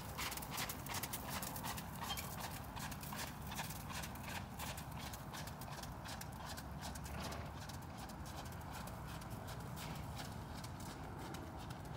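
Horse's hoofbeats on wet gravel arena footing, a run of soft, quick clip-clops that grow fainter as the horse moves away.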